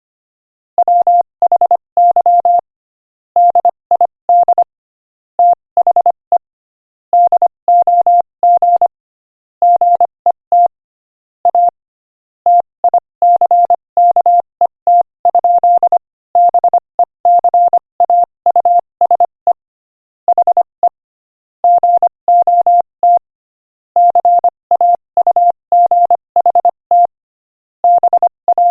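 Morse code sent at 25 words per minute as one steady beeping tone, keyed into short and long beeps grouped into letters and words with brief gaps between them. It starts a little under a second in.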